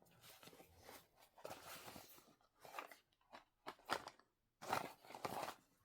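Unboxing packaging being handled: irregular faint rustling and crunching, with a few short sharp clicks about halfway through and a longer rustle near the end.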